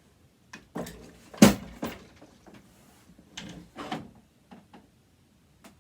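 Metal parts of a sewing machine being handled during disassembly: a series of irregular clicks, knocks and scrapes, the loudest knock about a second and a half in.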